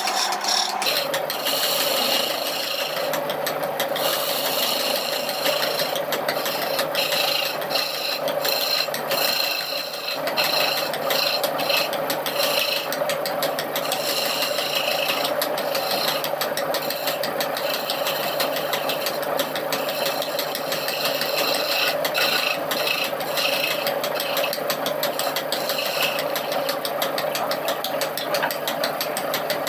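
Electric hand-held power tool running steadily and cutting or grinding wood. Its motor pitch drops slightly about a second in as it takes load, and a rough scraping comes and goes as the tool meets the wood.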